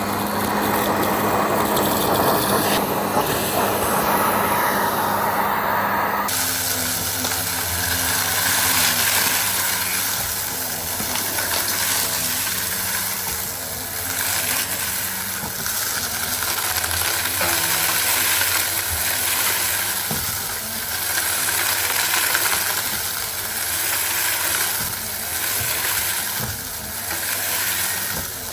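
Goodmans TurboMax vacuum cleaner running with a loud, steady hiss; about six seconds in, its sound changes abruptly to a rougher, fluctuating hiss.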